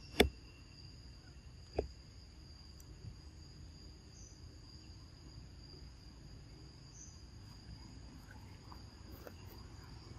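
Steady, high-pitched chorus of insects over outdoor background hum, with two sharp clicks near the start, the first the loudest.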